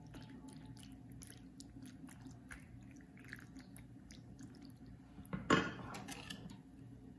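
A utensil poking and pressing into béchamel-covered penne in a glass baking dish: soft wet squishing with small scattered clicks against the dish, over a low steady hum. About five and a half seconds in there is one louder, short knock.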